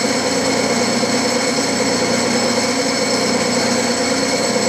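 Metal lathe running steadily, a mechanical hum with a constant high whine over it and no change in speed.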